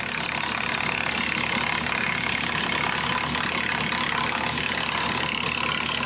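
Woodland Mills TF46 Pro PTO-driven wood chipper running behind a tractor, chipping a branch fed into its infeed chute. It makes a steady mechanical whir with the tractor engine under it.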